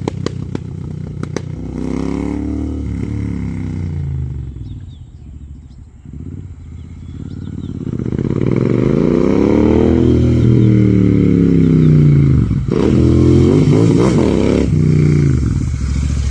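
Royal Enfield Continental GT 650's parallel-twin engine through an AEW TE-103 megaphone exhaust, revving up and falling back three times, loud, with sharp crackles and pops when the throttle comes off.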